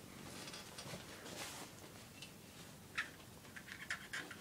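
Quiet room tone with faint hiss and a few small clicks, the clearest one about three seconds in.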